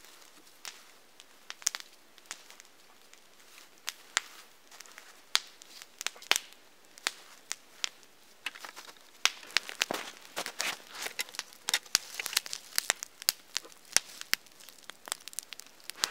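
Dry snow crunching and squeaking as hands scoop it up and pack it into a metal pot, in sharp crunches that come sparsely at first and then thick and fast in the second half.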